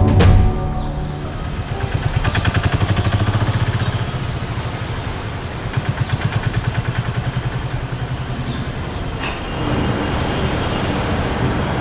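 Motor vehicle traffic, an engine running with a rapid, even beat that pulses up twice for a couple of seconds at a time.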